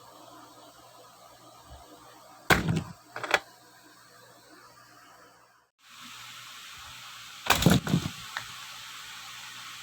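Plastic toy monster truck knocking and clattering on a surface as it is played with: a few sharp knocks about two and a half seconds in, then a heavier cluster of bangs about five seconds later, over a steady background hiss.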